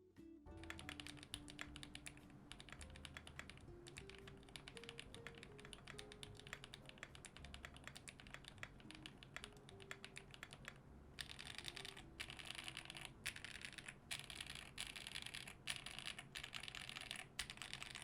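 Typing test on a QK65 mechanical keyboard with Holy Panda tactile switches: a steady, fast clatter of keystrokes that grows louder and brighter about eleven seconds in, with background music underneath.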